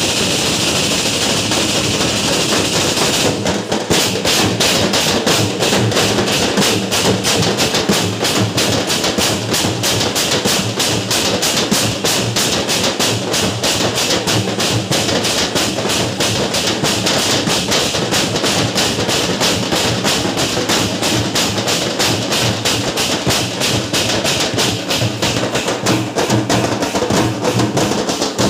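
A group of drums beaten hard in a fast, even rhythm for the street dance. A steady high hiss lies over the first few seconds, then the drum strikes carry on densely.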